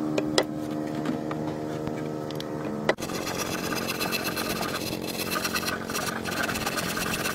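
A small petrol engine running steadily, with a few sharp knocks in the first seconds. About three seconds in, the sound breaks off and goes on as rougher, buzzier engine running.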